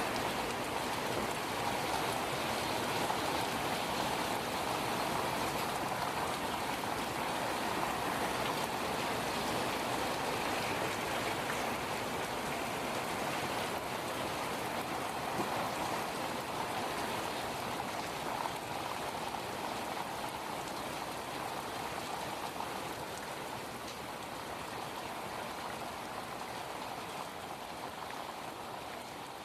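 Steady rain from a thunderstorm, a dense even patter with no thunder heard. It grows gradually quieter over the last several seconds.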